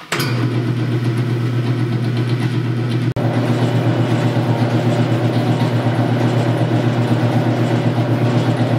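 Delta 14-inch bandsaw, converted for metal cutting, running on its jackshaft-and-pulley speed reduction: a steady motor hum with a fast, even pulsing from the belts and pulleys. It comes in abruptly at the start and has a momentary break about three seconds in.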